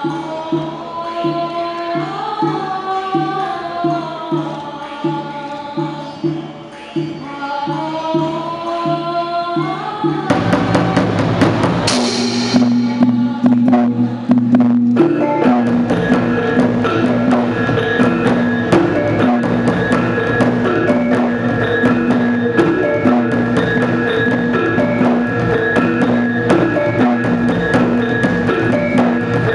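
Music for a Dayak creative dance: a wavering sung melody over an even low beat of about two a second, then about ten seconds in a louder, fuller ensemble comes in with quick, dense percussion and held tones.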